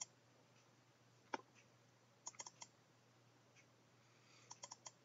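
Computer mouse button clicks: a single click about a second in, then two quick clusters of several clicks, one around the middle and one near the end, over a faint low hum.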